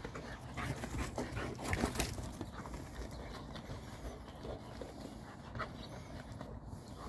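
A Boerboel and a Serbian Defense Dog playing chase, panting as they run, with a flurry of quick scuffles and thuds from about half a second to two seconds in.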